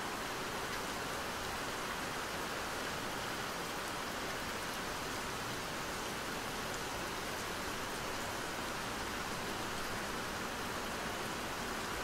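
Steady rain falling, an even unbroken hiss with faint fine drop ticks.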